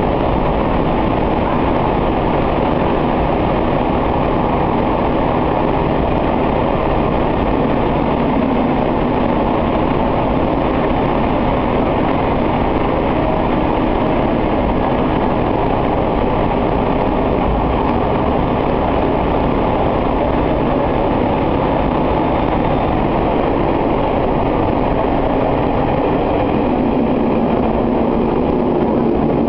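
Diesel railcar running through a long tunnel, heard from inside the car: a loud, steady rumble of the engine and the wheels on the rails, with the noise echoing off the tunnel walls. A low, steady engine hum comes up near the end.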